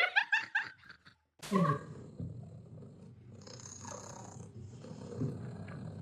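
A cat purring steadily, a low continuous rumble that starts suddenly about a second and a half in. It is preceded by a short run of quick, high vocal sounds in the first second.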